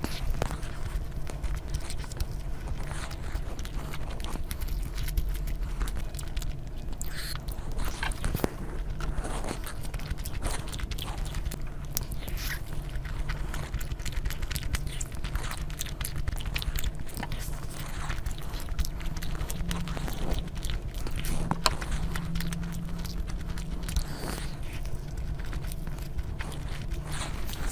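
Close-miked eating sounds: a person biting and chewing food, with many short irregular mouth clicks over a steady low hum.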